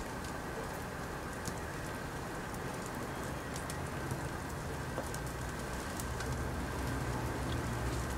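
Bras burning on a washing line: a steady hiss of flames with scattered small crackles and pops.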